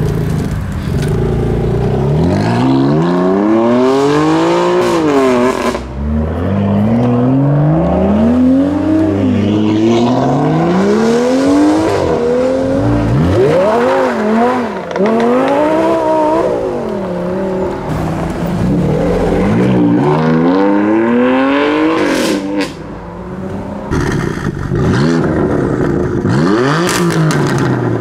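Sports-car engines accelerating hard in a run of short cut-together clips: the BMW M4 F82's twin-turbo inline-six pulling away first, and a Lamborghini Gallardo's V10 about halfway through. Engine pitch climbs and drops back again and again with the gear changes.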